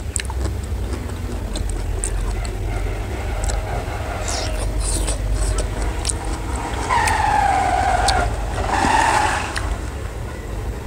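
Fingers mixing rice and curry in a brass bowl, with light clicks and scrapes, over a steady low rumble. About seven seconds in, a loud falling tone sounds, then a second, shorter one.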